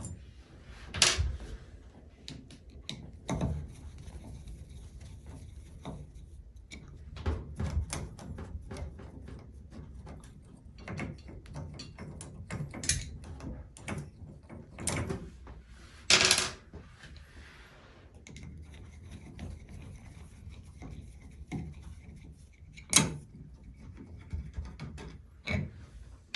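Scattered clicks and knocks of a screwdriver and small metal faucet parts being handled as screws come out of a shower faucet's cartridge retaining plate. A few sharper knocks stand out, about a second in, around the middle and near the end.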